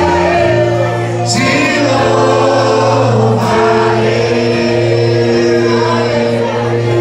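Gospel worship song sung by many voices together, over steady held low notes that sound throughout.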